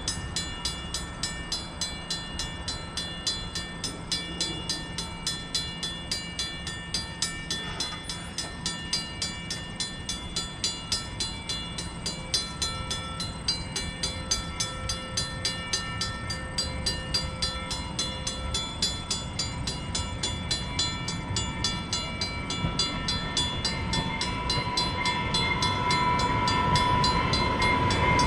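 Railroad level-crossing warning bell ringing in a steady, even rhythm with the gates down. An approaching commuter train grows steadily louder near the end.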